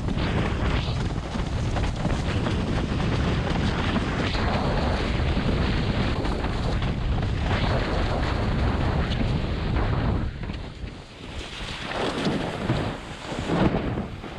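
Wind buffeting the camera microphone over the rush of water under a slalom windsurf board planing across chop. About ten seconds in, the buffeting drops away and the water comes through in uneven surges of splashing and spray.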